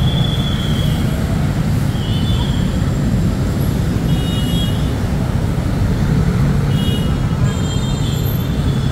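Steady rumble of busy city road traffic, motorcycles and cars passing close by, with a few short, faint high squeaks coming and going.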